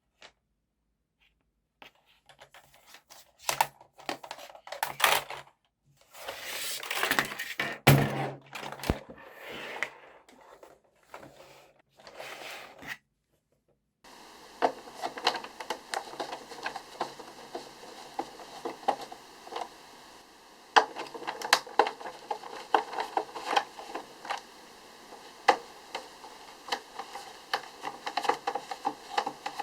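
Clicks, knocks and scraping of plastic keyboard parts and tools while a vintage mechanical keyboard is taken apart. Scattered knocks and scrapes come first, then, from about halfway in, a long run of quick small clicks over a faint steady hum.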